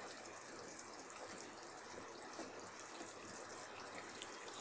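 Faint, steady bubbling and hiss of a prawn, green fig and potato curry simmering in a pan, with small pops, while a wooden spatula stirs through it.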